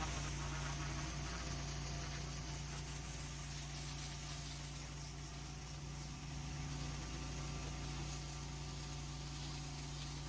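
Petrol pressure washer engine running steadily, a constant low hum with a steady hiss over it.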